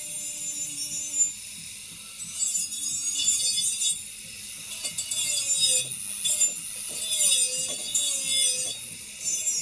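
Rough rubbing and scraping strokes of a hand tool working a surface, in bursts of one to two seconds, with faint background music.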